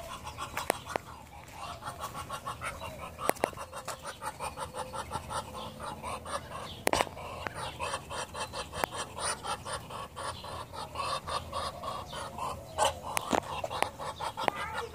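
Poultry clucking in short calls, several a second, with a few sharp clicks among them.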